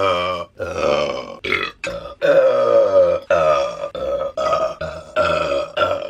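A woman burping loudly: a rapid string of about seven to nine burps, some short and some drawn out for half a second or more, with brief breaks between them.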